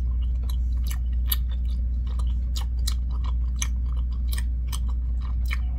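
Close-up chewing of a mouthful of tteokbokki, chewy Korean rice cakes in spicy sauce: a run of small, irregular wet mouth clicks, over a steady low hum.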